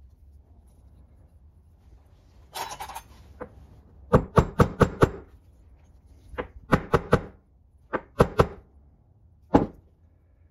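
Ball-peen hammer tapping a small cast-metal battery disconnect switch part held in the hand: quick runs of light blows, about five, then four, then three, and a single blow near the end. A short rattle comes before the first blows.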